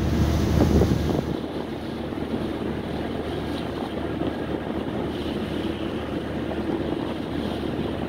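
Sea water rushing and splashing along the side of a moving ship's hull, with wind buffeting the microphone, strongest in about the first second, over a steady low rumble from the ship.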